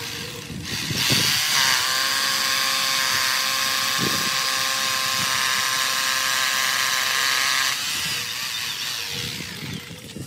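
Corded electric drill boring into a stone-patterned facing tile: a steady, high motor whine over a grinding hiss that starts about a second in, runs for about seven seconds, then stops.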